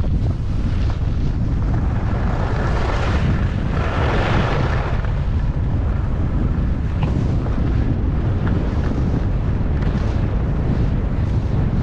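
Wind rumbling on the camera microphone while skiing downhill, with the hiss and scrape of skis on packed snow swelling for a couple of seconds about three seconds in.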